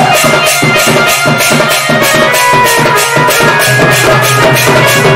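Live folk music led by a large barrel-shaped dhol beaten with a stick, keeping a fast, steady rhythm with sharp strokes about four a second over held melody tones.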